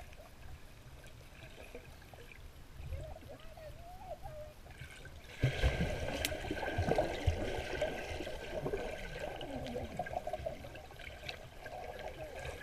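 Muffled water in a swimming pool, heard from a camera held underwater. About five seconds in, a sudden loud rush of churning, bubbling water as a swimmer goes under and kicks close by, easing off a few seconds later.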